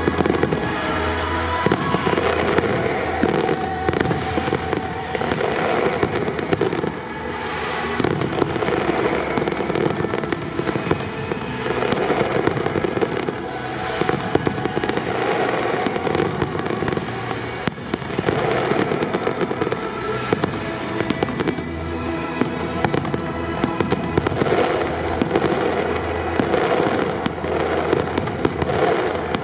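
Aerial fireworks display: a dense, unbroken run of bangs and crackling from shells bursting overhead.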